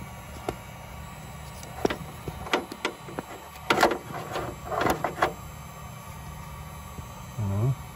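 A scattered series of sharp clicks and knocks with some rustling, the loudest about four seconds in, over a steady low hum. A short voiced hum follows near the end.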